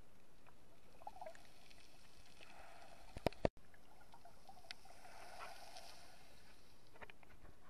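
Muffled underwater ambience picked up by a submerged camera: a steady hiss with faint crackling and a wavering watery murmur. A few sharp knocks a little over three seconds in, after which the sound cuts out for an instant.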